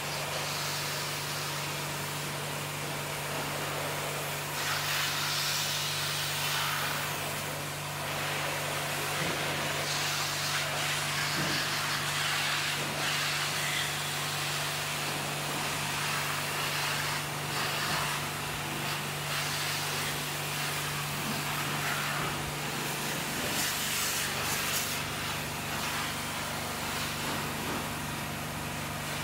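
High-pressure washer jet spraying water onto a car's body panels: a hiss of spray that swells and fades as the jet is moved across the car, over a steady low hum.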